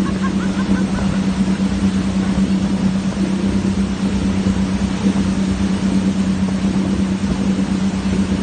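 Boat engine running at a steady, unchanging drone, with the wash of water and wind mixed in.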